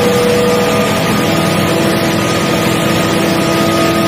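Small single-seat coaxial helicopter's engine running hard at about 5000 rpm with its twin rotors spinning. It makes a loud, steady drone with whining tones in it, and the main whine drops to a lower pitch about a second in.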